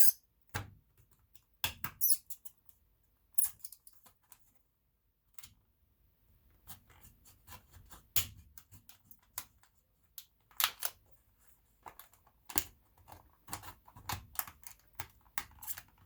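A knife cutting and prying open a card-stock product package, with irregular sharp clicks, scrapes and rustles and a short quiet pause about four seconds in.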